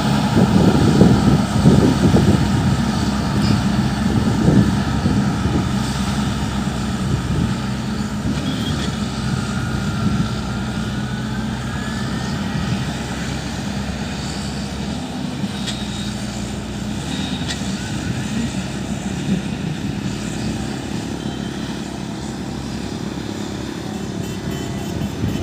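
Motor grader's diesel engine running under load with a steady drone, louder and rougher for the first few seconds before settling.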